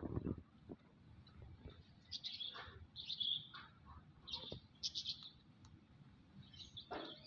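Short, high bird chirps coming in several clusters, with a soft low thump right at the start.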